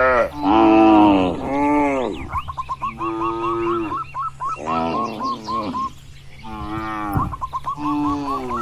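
Cattle mooing again and again, about six moos of half a second to a second each, with quick runs of short repeated high notes between them.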